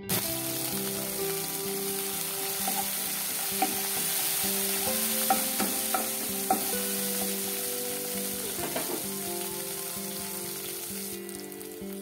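Chopped tomato, onion and garlic sizzling in hot oil in a nonstick wok, stirred with a wooden spatula. The spatula knocks and scrapes against the pan several times in the middle.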